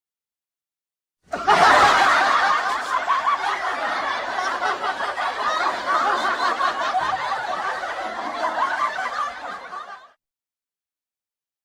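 Crowd laughing, as in a stock laugh-track sound effect. The laughter comes in suddenly about a second in, dies down gradually over about nine seconds, then stops.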